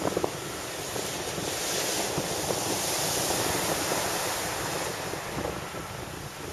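Heavy shore-break surf crashing and washing up the beach, with wind buffeting the microphone. The roar of the surf builds louder for a few seconds in the middle.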